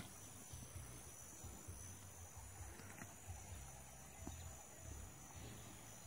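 Faint, steady high-pitched chirring of insects in grassland, with a low, unsteady rumble underneath.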